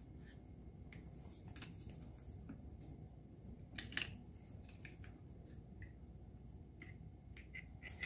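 Faint scattered clicks and light knocks from hands working the handlebar stem of a Bentley children's trike while it is tightened, over a low room hum. The loudest clicks come about one and a half seconds in and about four seconds in.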